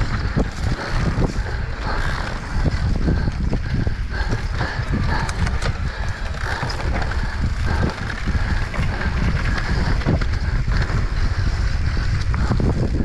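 Mountain bike riding fast down dirt singletrack: tyres rolling over dirt and roots, with frequent rattles and knocks from the bike over bumps, under heavy wind rumble on the microphone.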